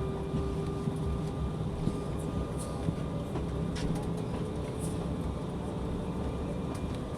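Cabin noise inside an Embraer ERJ-175 airliner on the ground, with its GE CF34-8E turbofan engines at idle: a steady hum made of a few held tones over a low rumble, with a few faint clicks.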